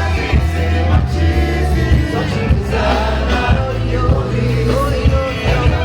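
Live concert music played loud: a steady drum beat over deep, sustained bass notes, with singing over the top.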